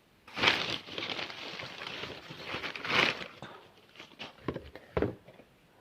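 Packaging being handled: a few seconds of rustling and crinkling, then a couple of short light knocks near the end.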